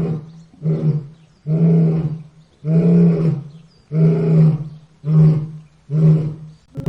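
Lion roaring in a bout of repeated calls, about one a second, the later ones shorter.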